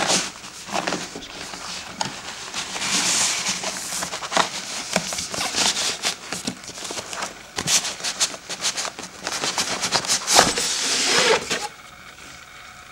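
Cardboard packaging being handled: a box sleeve sliding off, paper and cardboard rustling and scraping, with knocks and clicks of the box and a fabric backpack being lifted out. The handling stops about a second before the end.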